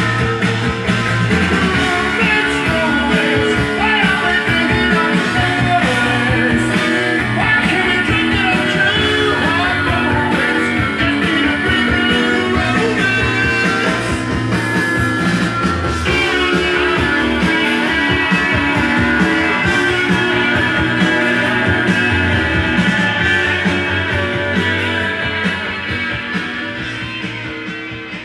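Rock song with guitar, played back from a vinyl record; the track fades out over the last few seconds.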